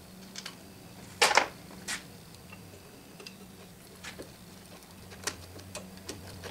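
Scattered light metallic clicks and taps as screws and small parts are fitted by hand at the change-gear end of a South Bend 9-inch lathe, with one sharper clack about a second in. A steady low hum runs underneath.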